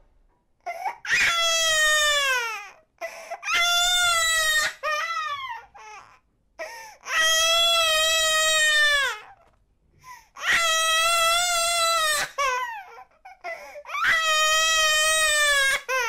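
An 8-month-old baby crying hard: five long wails separated by short gasping pauses, the pitch dropping at the end of several of them. The crying starts about a second in.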